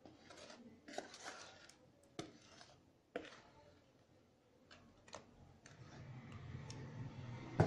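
A wire whisk and a plastic mixing bowl scraping and knocking lightly as cake batter is poured and scraped out into a baking tin. A handful of sharp clicks sit over soft scraping that gets louder near the end.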